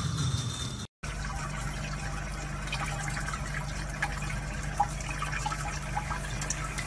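Water running steadily from a faucet, pouring over a wet kitten's head in a sink. It starts about a second in, after a brief break.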